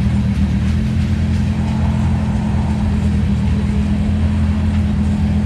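Lamborghini Huracán Tecnica's naturally aspirated V10 idling steadily, a deep even hum.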